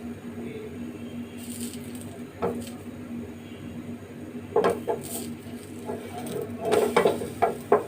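Kitchen utensils clinking and tapping against cookware: a few separate knocks, then a quick run of several taps near the end, over a steady low hum.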